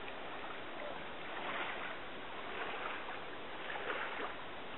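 Water swishing and sloshing around the legs of a person wading through shallow lake water, a steady noise with a few gentle surges.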